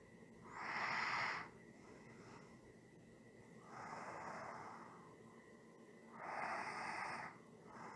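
A person breathing slowly and evenly: three long breaths about two and a half seconds apart, each lasting about a second, the first and last louder than the middle one.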